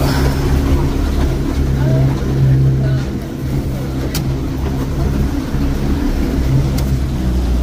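Motorboat engine running steadily under way, with a steady rushing noise over it.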